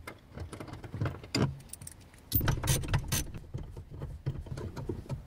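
Socket ratchet clicking and metal clinks of socket and bolt as 14 mm seat-mounting bolts are undone, in irregular clusters of clicks.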